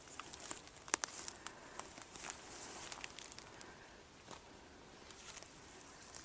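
Footsteps through forest undergrowth, crunching leaf litter, with irregular snaps and crackles of dry twigs.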